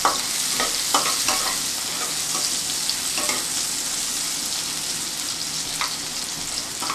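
Chopped onions sizzling in hot oil in a kadai, a steady hiss, with a spatula scraping against the pan now and then as they are stirred.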